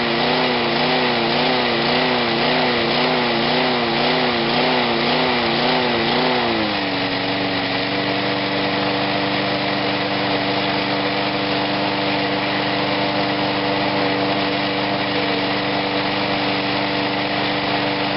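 6 hp single-cylinder Briggs & Stratton lawnmower engine at full throttle, hunting and surging: its speed rises and falls evenly about twice a second. About seven seconds in it settles to a slightly lower, steady speed and runs evenly.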